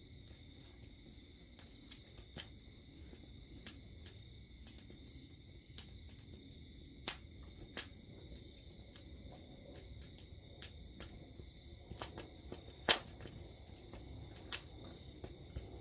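Wood fire crackling in a stove, with sparse, irregular sharp pops and snaps; the loudest comes about three-quarters of the way through. Under them is a faint, steady high-pitched whine.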